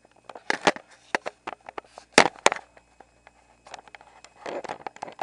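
Sharp mechanical clicks and snaps from a Spyder Xtra paintball marker as its trigger is pulled during reassembly, releasing the hammer while the internals are pushed in. Two loud snaps come about two seconds in, a quarter second apart, among lighter handling clicks and a brief rustle near the end.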